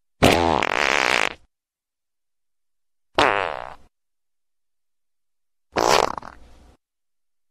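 Three fart sounds with a wavering pitch, the first the longest at about a second, the next two shorter, each ending abruptly in silence.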